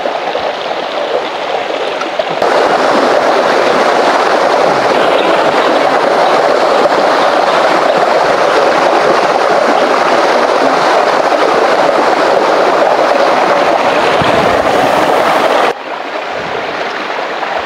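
Shallow rocky stream rushing steadily over stones. The water noise steps up louder about two seconds in and drops back down near the end.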